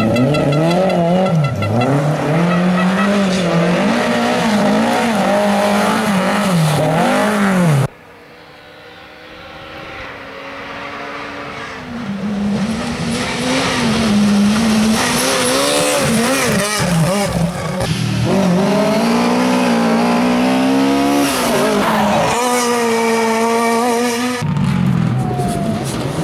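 Rally car engines revving hard, the pitch rising and falling with throttle and gear changes, in several short clips cut one after another: first a Lada, then a Ford Fiesta rally car heard from a distance and growing louder as it approaches, then a Subaru Impreza.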